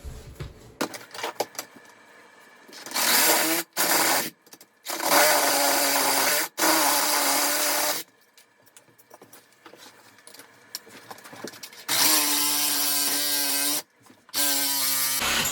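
A handheld power tool cutting through the toilet's metal closet bolts, run in about six bursts of one to two seconds with a few seconds' pause in the middle.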